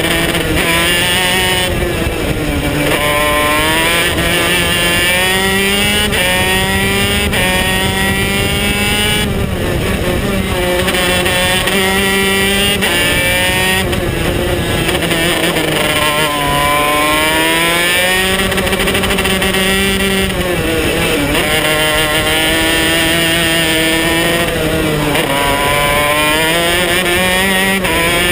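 KZ125 shifter kart's 125cc two-stroke engine at racing speed, heard close up from onboard. Its pitch climbs and falls back over and over.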